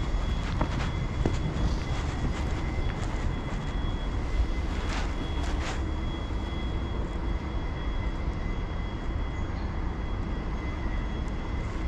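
Steady rumble of city traffic with a faint, steady high-pitched whine and a few scattered sharp clicks.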